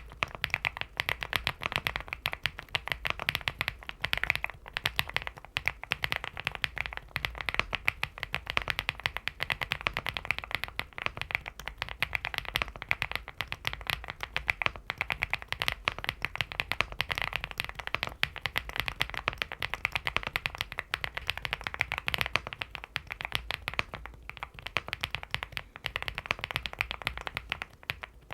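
Steady fast typing on a LEOBOG Hi75 mechanical keyboard fitted with Owlab London Fog factory-lubed linear switches, a dense run of key clacks with no breaks.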